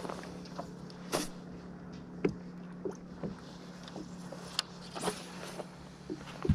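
Steady low hum of a fishing boat's motor running, with scattered short knocks and clicks of gear on the boat.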